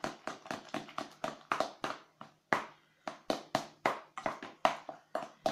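Metal spoon clinking rapidly against a stainless steel mixing bowl, about four strikes a second, as eggs are beaten into a thick mix of shredded cabbage. There is a short pause a little after two seconds in.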